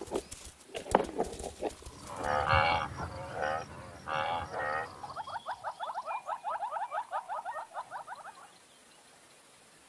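African buffalo lowing: several drawn-out moos from the herd, after a few short knocks. Then a fast run of short rising chirping calls, about eight a second, lasts some three seconds and stops abruptly.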